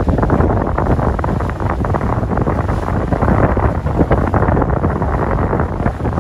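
Wind buffeting the microphone aboard a moving boat, a loud, steady rough rumble with no clear engine tone.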